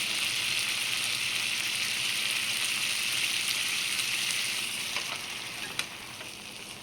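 Food sizzling in a hot pan: a steady frying hiss that fades over the last couple of seconds, with a couple of light clicks near the end.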